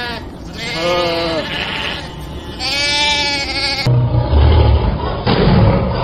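Sheep bleating twice, each call a rising-then-falling bleat. About four seconds in it gives way to a lioness's deep, rumbling roar, which is louder.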